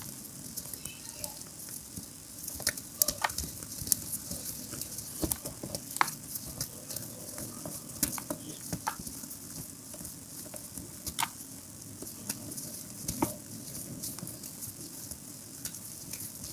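Hands crumbling and sifting broken reformed gym chalk: powder and small crumbly lumps crunching and rustling between the fingers, with irregular sharp crackles.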